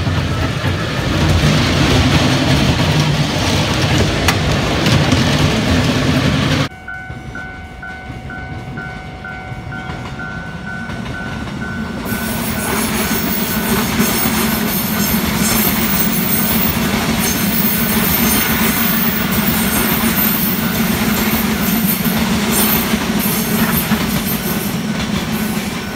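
Passenger trains running past on the track. A close pass is cut off abruptly about seven seconds in. The noise of a blue-and-white electric multiple-unit train then builds again from about twelve seconds and holds steady as it runs by.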